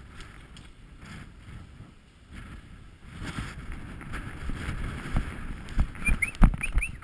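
Low rumbling handling and movement noise on a body-worn camera, then several sharp cracks in the last couple of seconds, heard as airsoft rifle shots.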